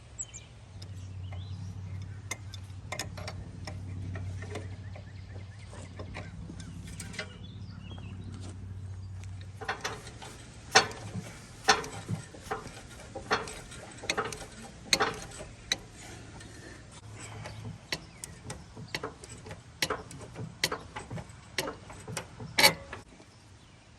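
A low steady hum for roughly the first ten seconds, then a run of irregular sharp knocks and clicks: knocking and tapping on the metal of a firewood processor.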